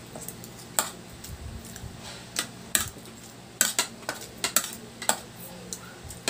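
Metal spoons and forks clinking and scraping against ceramic dinner plates while eating: about eight sharp clinks, several in quick succession around the middle.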